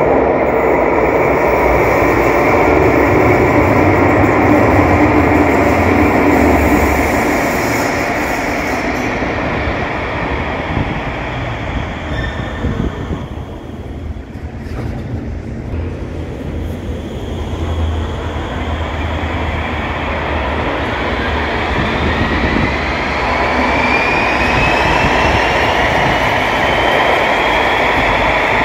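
Underground light-rail train running into the platform and slowing to a stop, with the sound easing off while it stands. It then pulls away, its traction motors giving a rising whine as it speeds up.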